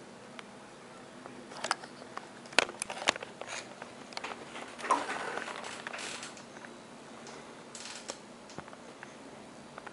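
Handling noise from a camcorder being turned over in the hands: scattered small plastic clicks, several sharp ones about two to three seconds in, with rustling about five seconds in and again near eight seconds.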